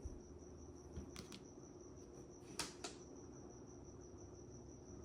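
Mahjong tiles clicking briefly as they are handled and set down: a soft pair of clicks about a second in and a louder pair about halfway through, over a steady high-pitched trill.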